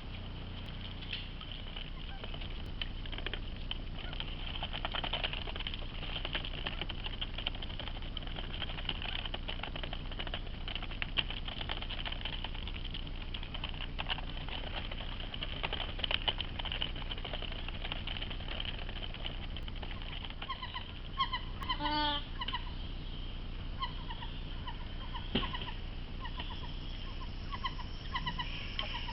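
White-winged wood ducks calling over a steady high hiss: a quick descending run of notes about two-thirds of the way through, then a series of short repeated call notes near the end.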